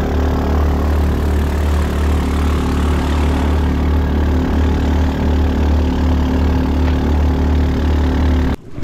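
A small wooden boat's inboard engine running steadily at speed, a loud low drone under the rush of spray thrown off the hull. It cuts off abruptly just before the end.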